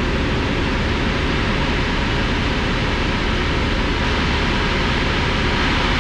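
Cabin noise of a Cessna 172 in flight: the engine and propeller drone steadily under an even hiss of air.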